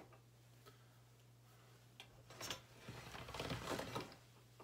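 Faint handling sounds of hands working polymer clay onto a foil armature: a few soft clicks and rustles, busier in the second half, over a steady low hum.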